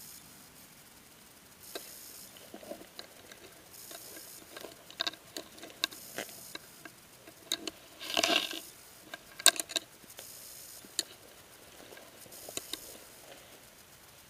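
Rustling and scattered snaps and clicks of a person moving through dry brush and leaf litter, with the loudest rustle a little past halfway.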